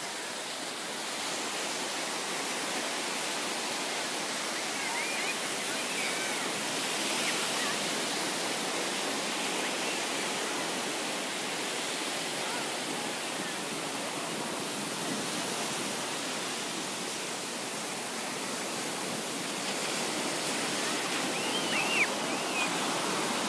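Ocean surf breaking on a sandy beach: a steady rushing wash of waves. A short, sharp, louder sound comes near the end.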